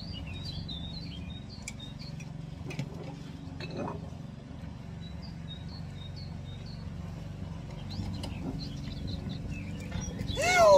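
Small birds chirping faintly and intermittently over a steady low hum, with a short, loud, falling cry near the end.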